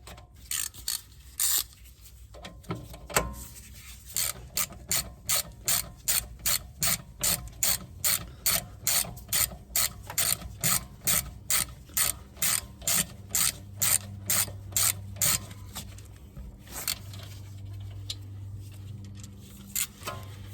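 Ratchet wrench clicking on its backswing as the brake caliper guide bolts are screwed in and tightened. The clicks come in a steady run of about two to three a second for around twelve seconds, with a few scattered clicks before and after.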